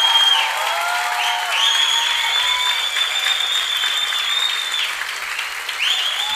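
Theatre audience applauding, with cheering voices and long, high held whistles over the clapping.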